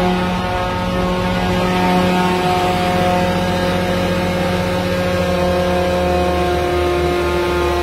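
Diesel engine of a PTO-driven drain-jetter truck running at high revs to power the high-pressure water pump, a steady even drone. Near the end its pitch steps down a little as the revs are lowered from the wireless remote.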